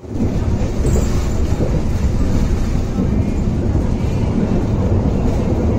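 Passenger train running at speed, heard from inside the coach: a steady, loud rumble of the wheels on the rails.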